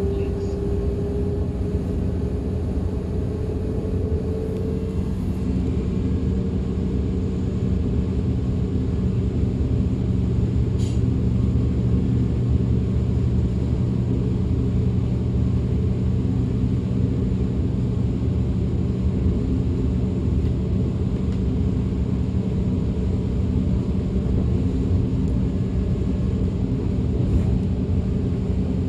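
DB Class 425 electric multiple unit running, heard from inside: a steady low rumble of the moving train, with a whine rising slowly in pitch over the first five seconds or so.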